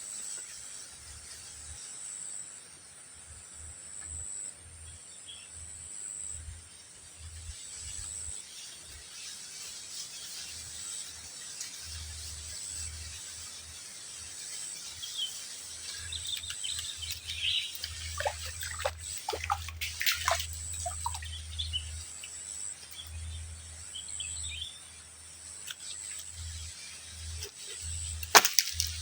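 Outdoor ambience by fishing water: a steady high insect trill throughout, birds chirping around the middle, and low wind rumble on the microphone, with a few sharp clicks near the end.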